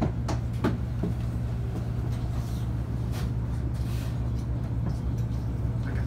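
Inside a city bus: the engine's steady low hum fills the cabin, with a few sharp clicks and knocks, mostly in the first second.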